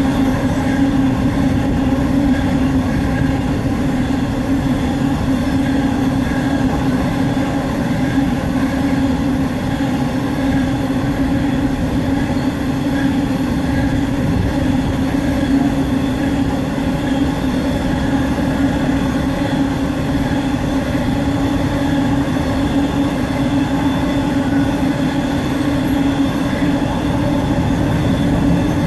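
Coal train hopper wagons rolling past on the rails: a loud, steady rumble with a constant drone, unbroken throughout.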